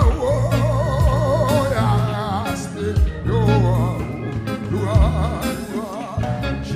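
A man singing a gospel worship song into a microphone with a wavering, held melody, over a band with a steady bass line and drum beats.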